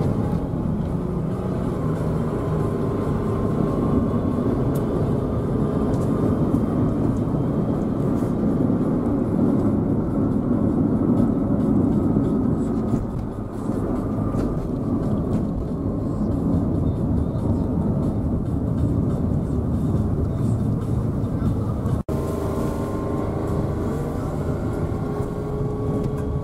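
Car engine and road noise heard from inside the cabin while driving: a steady rumble with a faint engine hum. It cuts out for an instant about three-quarters of the way through.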